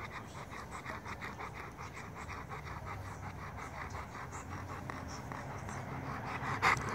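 Rottweiler panting with its mouth open, in quick, even breaths. A brief, louder noise breaks in near the end.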